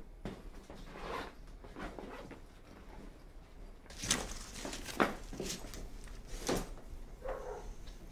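A fabric duffel bag being handled: soft rustling, then a few sharp clicks and knocks from about halfway through.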